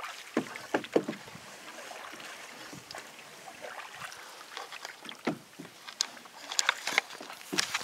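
Canoe paddle working the water: irregular small splashes, drips and gurgles as the blade dips, pulls and lifts.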